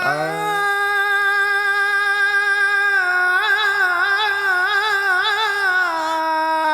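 A man imitating a dog's howl with his voice: one long howl that holds steady, starts to waver about three seconds in, and drops lower near the end.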